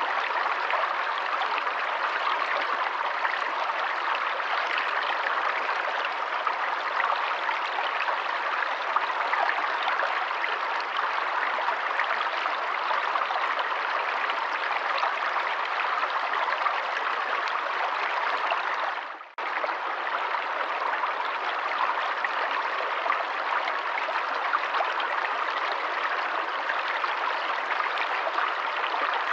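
Stream of water running steadily. About 19 seconds in, the sound briefly fades out and cuts back in.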